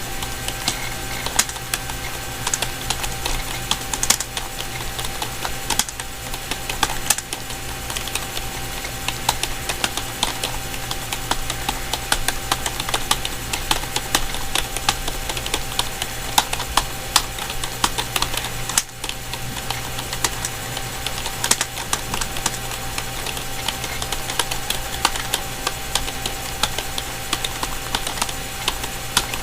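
Typing on a Dell KB212-B membrane keyboard: a fast, irregular stream of key clicks with a brief pause about two-thirds of the way through, over a steady low hum.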